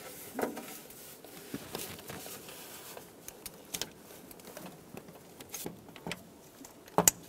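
Light, scattered metal clicks and knocks of a socket wrench and swivel extension being worked and drawn off a crankshaft position sensor mounting bolt, the loosened bolt being taken out by hand. A couple of sharper clicks come near the end.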